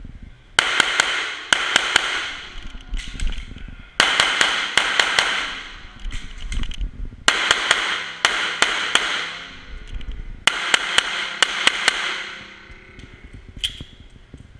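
Glock 34 Gen 4 9mm pistol firing four rapid strings of shots with short pauses between them. Each shot echoes in an indoor range.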